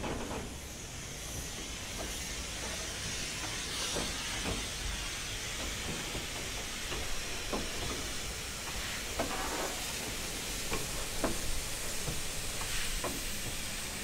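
BR Standard Class 9F 2-10-0 steam locomotive No. 92214 moving slowly past tender-first, with a steady hiss of steam escaping low around its cylinders. Scattered knocks and clanks from the wheels and motion come mostly in the second half.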